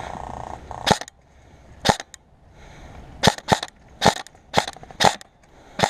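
Airsoft guns firing single shots: about eight sharp cracks at uneven intervals, some in quick pairs. A short buzzing whine sounds during the first second.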